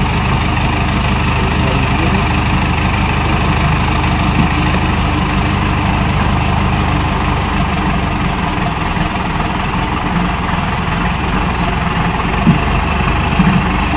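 Vacuum tanker truck's engine and pump running steadily while it pumps out a sewage tank.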